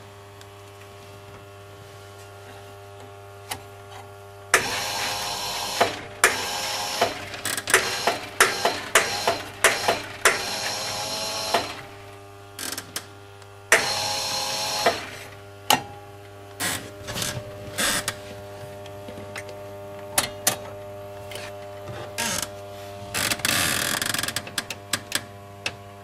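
Rock-Ola jukebox mechanism running in several spells of whirring, with many sharp clicks and ratchet-like snaps, over a steady electrical hum from the machine.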